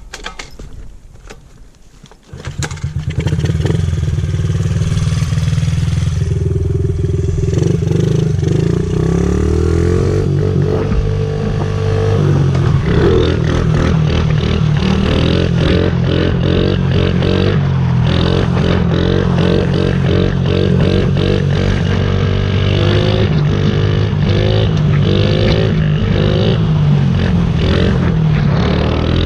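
Honda CRF50's small single-cylinder four-stroke engine catches about two seconds in and runs loudly. From midway on it is revved up and down over and over, about once a second.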